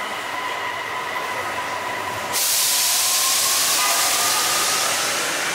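Electric light-rail train moving along the platform, with a steady whine of several tones. About two seconds in, a loud hiss cuts in suddenly and carries on.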